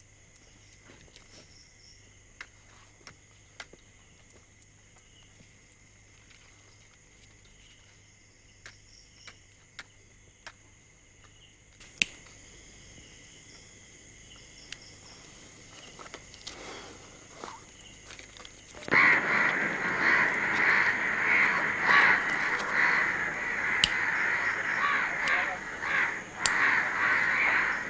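Crows cawing. After a long quiet stretch with a few faint clicks, many crows burst into loud, dense, overlapping cawing about two-thirds of the way through.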